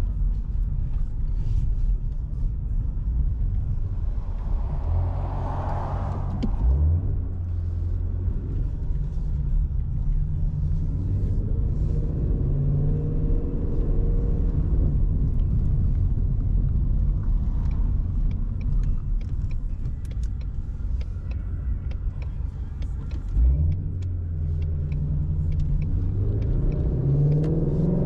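Shelby GT350's 5.2-litre flat-plane-crank V8 running while driving, a low steady rumble. The note jumps briefly twice, and the revs climb near the end as the car accelerates.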